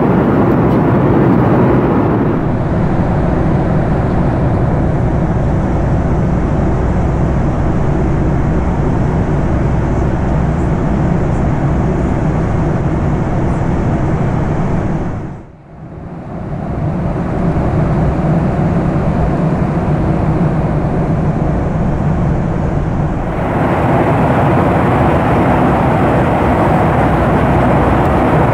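Steady cabin noise of a Boeing 737-8 MAX in cruise, an even rush of airflow and engine noise heard from an economy seat. It dips briefly about halfway through and changes in tone twice where the recording is cut.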